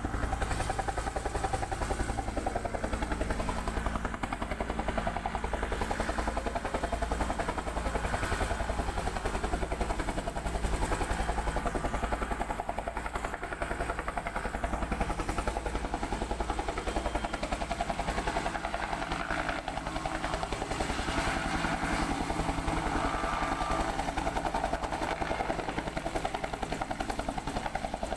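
Military helicopter running, its rotor blades beating in a fast, steady pulse over the engine's whine.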